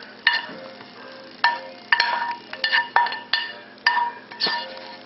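A spoon knocking and scraping against a frying pan as fried mushrooms are spooned out: about ten sharp clinks at irregular intervals, each leaving a brief metallic ring.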